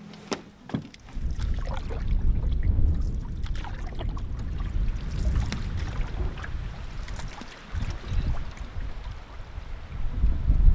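A few knocks as a pack is loaded into a canoe, then wind rumbling hard on the microphone over water splashing around a canoe moving across a choppy lake.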